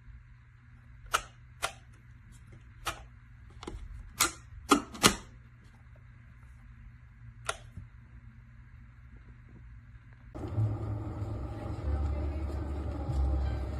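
A string of sharp clicks and knocks at uneven spacing, eight in all, the loudest in a quick cluster of three around four to five seconds in. About ten seconds in, a louder, steady low rumbling noise starts abruptly.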